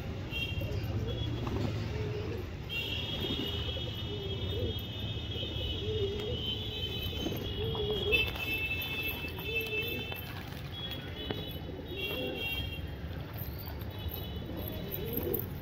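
Domestic pigeons cooing repeatedly over a steady low hum, with a high-pitched electronic-sounding tone sounding on and off through the middle of it.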